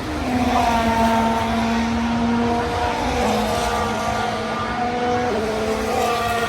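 Formula 1 turbocharged V6 race car engines running at high revs. Their pitch holds steady and drops in steps a couple of times.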